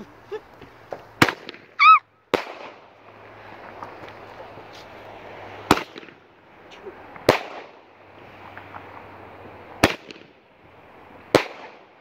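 Fireworks exploding overhead: six sharp bangs, one to three seconds apart, with a crackling hiss between them.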